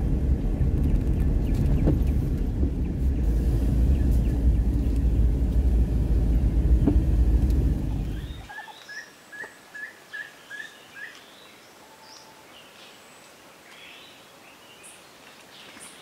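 Steady rumble of a moving car on the road, cutting off suddenly about eight seconds in. Then birds calling: one repeats a short high note about eight times in quick succession, with scattered chirps from others.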